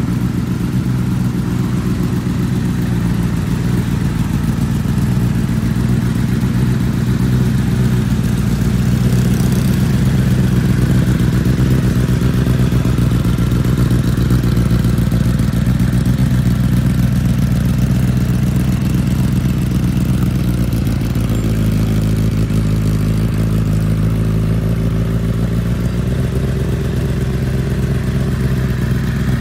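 2009 Honda CBR1000RR's inline-four engine idling steadily.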